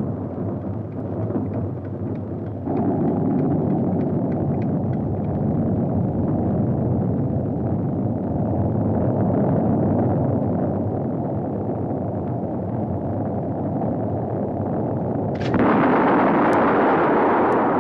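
Steady low rumbling noise, a little louder from about three seconds in. Near the end it switches abruptly to a louder, brighter hiss as an old radio with piano-key buttons is switched on.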